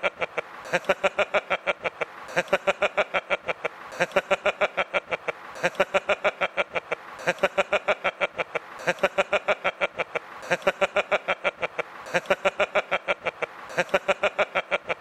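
A man laughing hard, a fast run of 'ha-ha-ha' pulses, about eight a second, repeated in runs of a second or so with short gaps for breath between them.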